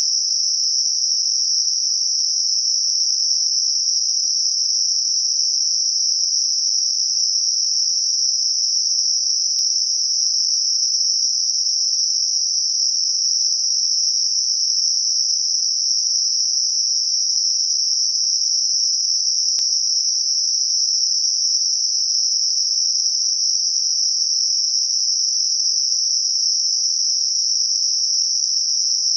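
Synthetic narrowband noise centred on 5.5 kHz, a steady, unbroken high-pitched hiss. It is a tinnitus masker shaped to cover ringing or hissing tinnitus around that pitch.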